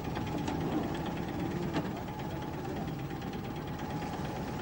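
Marine engine running steadily, with a constant hum under it and a faint click nearly two seconds in.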